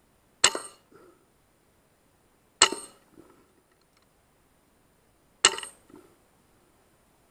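Three shots from a .177 FX Wildcat Mk III Compact PCP air rifle, each a sharp metallic crack with a short ring, two to three seconds apart, and a faint knock about half a second after each.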